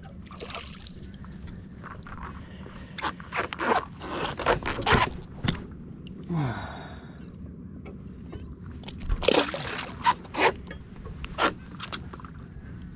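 Irregular scrapes and knocks from handling a freshly caught triggerfish and fishing tackle on an inflatable paddle board, with a short breathy sound about halfway through.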